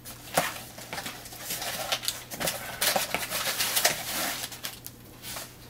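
A blade slitting the packing tape along a cardboard box, then the cardboard flaps being pulled open, with irregular scraping, tapping and rustling.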